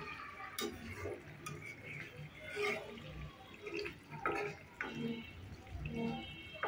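Fish curry in thick, oily masala being stirred in a pan with a spatula: irregular wet squelching and bubbling from the simmering sauce, with a few light scrapes and knocks of the spatula against the pan.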